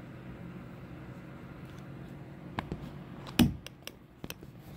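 A steady low hum, then a run of irregular sharp knocks and clicks starting about two and a half seconds in, the loudest about a second later; no thunder is heard.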